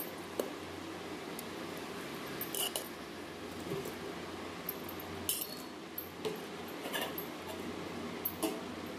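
Metal serving spoon clinking and tapping against a plate as cooked rice is spooned out: about six short, sharp clinks, a few of them ringing briefly, spread over several seconds.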